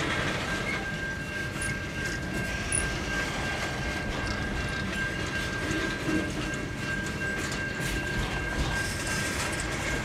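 Freight train boxcars rolling past: a steady noise of steel wheels on rail with irregular small knocks, and a thin high whine held on one pitch throughout.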